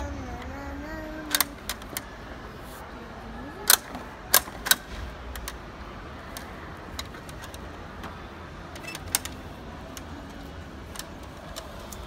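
Irregular sharp plastic clacks and taps as a toddler's hands slap and flip the hard plastic panels of a boxed Fisher-Price baby toy, with a few louder clacks around four seconds in.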